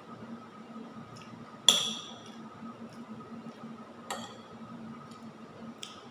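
Metal spoon clinking against a dish while eating: one sharp, ringing clink a little under two seconds in, and lighter clinks near four and six seconds, over a steady faint hum.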